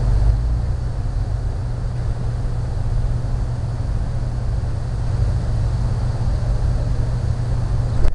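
Steady low rumble with a fainter hiss over it, unbroken until it cuts off abruptly near the end.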